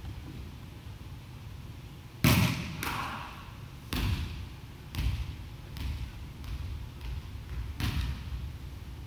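A volleyball struck hard about two seconds in, with a ringing echo in the hall, followed by a string of duller thumps as the ball bounces on the wooden gym floor.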